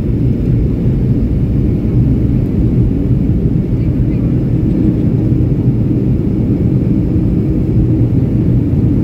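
Steady low rumble of jet engines and rushing air heard inside an airliner cabin during the descent to land.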